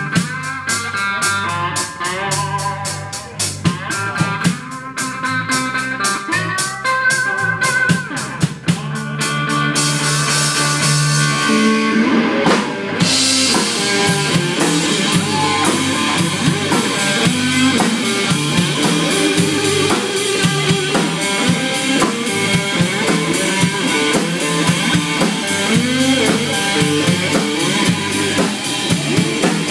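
Live blues-rock instrumental: an electric guitar played through an amp, with a drum kit. The guitar plays lead lines over sparse drum hits at first. The band gets louder and fuller about ten seconds in, and cymbals fill in from about thirteen seconds.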